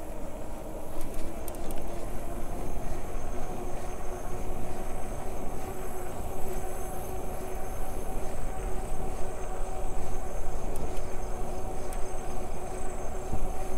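Electric bike's motor whining steadily, rising slightly in pitch over the first couple of seconds and then holding, over a low wind rumble on the microphone.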